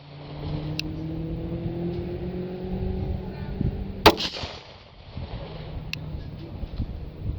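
A single Arex Rex Zero 1 pistol shot about four seconds in, a sharp crack followed by echo. Two fainter sharp cracks come about a second in and near the end. A steady low hum with a slowly rising tone runs under the first four seconds.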